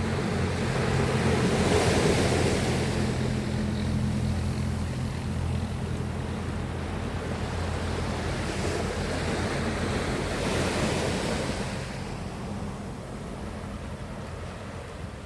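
Sea waves breaking and washing in, surging loudest about two seconds in and again about ten seconds in. A steady low hum sits underneath through the first half and fades out.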